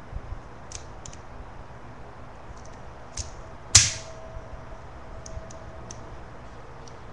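Miniature toy pistol firing once with a sharp crack a little under halfway through, with light clicks before and after it.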